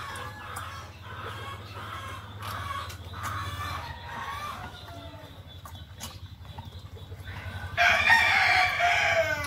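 Domestic chickens clucking, then a rooster crowing loudly near the end: one long call of about a second and a half that drops in pitch as it ends.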